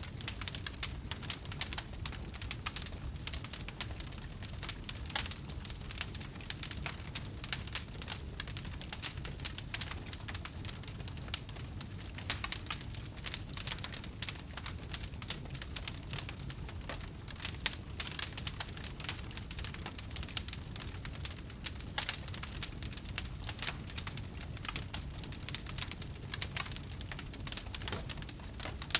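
Wood bonfire burning, with dense, continuous crackling and popping over a low, steady rumble of the flames.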